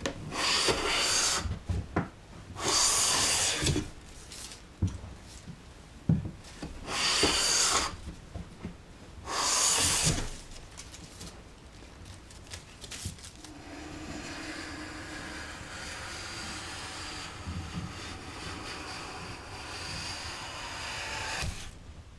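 Japanese hand plane (kanna) taking four long shaving strokes along a wooden board, each about a second long, with light wooden knocks between strokes. After about thirteen seconds the strokes stop and a quieter steady hiss continues.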